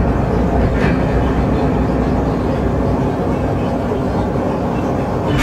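Live experimental noise soundscape: a loud, steady, dense rumble with a deep low drone, sounding like an Underground train running.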